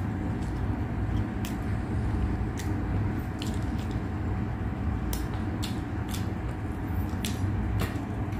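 Close-up eating sounds: chewing with irregular sharp wet mouth clicks and smacks, about one to three a second, over a steady low hum.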